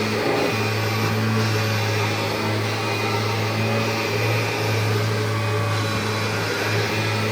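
1990 Kirby Generation 3 upright vacuum cleaner running on carpet, its motor and nylon fan making a steady drone.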